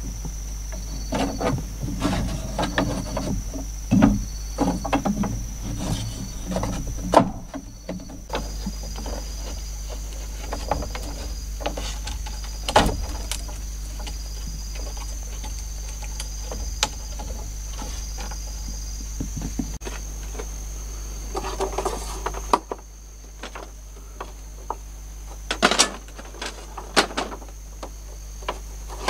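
Split bamboo slats clattering and knocking as they are handled and fitted into a bamboo wall frame, with several sharp knocks, over a steady high insect drone and a shorter insect call that repeats every second or so.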